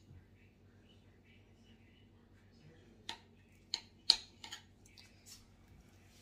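Quiet room tone with about five light kitchen taps and clicks in the second half, from banana being cut and laid into a disposable aluminium foil pan.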